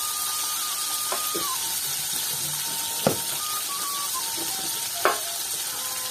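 Fish pieces frying in hot oil in a wok, a steady sizzle. Three sharp clicks of plastic spice containers being handled come through it, the loudest about three seconds in.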